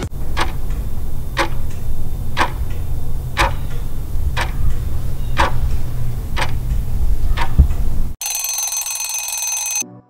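Countdown-timer sound effect: a clock ticking once a second, eight ticks over a low rumble, then an alarm ringing for about a second and a half as time runs out.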